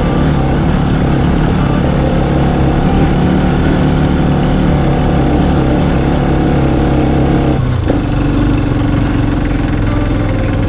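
Motorcycle engine running steadily under way; about eight seconds in its pitch drops suddenly, as at a gear change or throttle change, then holds steady again.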